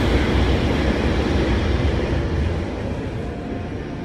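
ČD class 162 electric locomotive passing close by, a loud rumble of motors and wheels that starts to fade about two and a half seconds in as it moves away.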